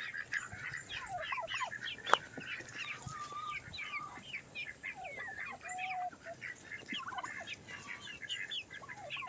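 A backyard poultry flock calling: many short, high peeps and chirps overlapping one another, with a few lower calls among them. A single sharp knock sounds about two seconds in.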